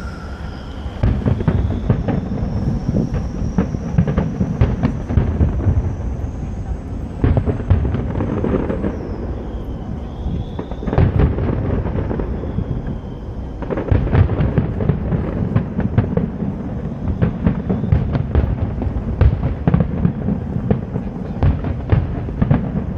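A rapid, continuous fireworks barrage: dense booms and crackles with a heavy low rumble, starting about a second in. A few long high whistles run through the first half.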